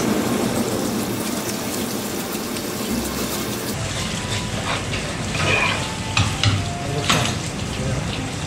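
Scales being scraped off a flathead with a knife under a running tap: a steady gritty rasping mixed with splashing water, with several sharp clicks and knocks in the second half.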